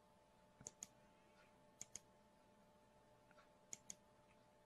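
Faint double clicks of a computer mouse, three pairs about a second or two apart, with a few fainter ticks between, over a faint steady hum.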